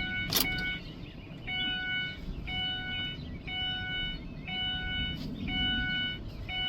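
A car's electronic warning chime, a repeating electronic tone sounding about once a second, about seven times. A sharp click sounds about half a second in.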